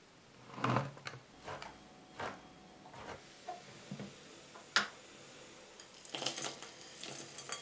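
A knife chopping dark chocolate on a wooden cutting board, a string of separate sharp chops through the first five seconds. Near the end comes a quick clatter and rustle as chopped chocolate pieces drop into a glass bowl.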